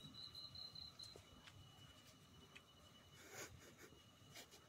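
Near silence: a faint steady high whine, with a brief higher tone in the first second and a few faint clicks.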